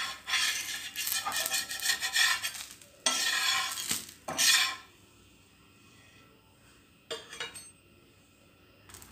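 Metal spatula scraping over an iron tawa as a cooked aapam is prised up and lifted off, in repeated scrapes during the first four and a half seconds. After that it is quiet, apart from a brief clatter about seven seconds in.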